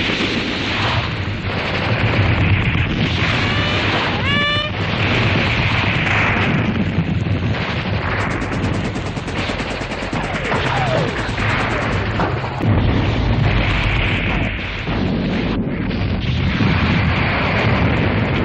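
Battle sound effects: a dense, continuous din of artillery explosions and gunfire, with a short whistling tone about four seconds in.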